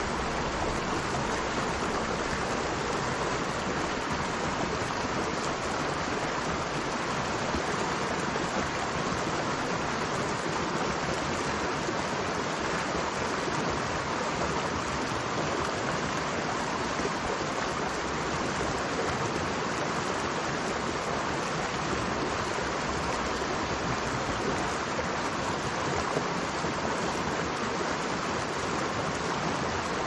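Flowing river water: a steady, even rush with no breaks or separate splashes.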